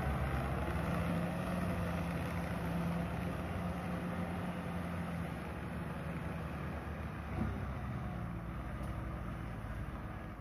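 Farm tractor's diesel engine running steadily while it pulls a rotary tiller through wet field soil, fading slightly as the tractor moves away. A brief knock about seven seconds in.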